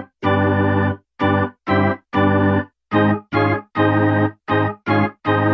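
Intro music of short, punchy organ-like keyboard chords, each cut off by a brief silence, a little under two a second.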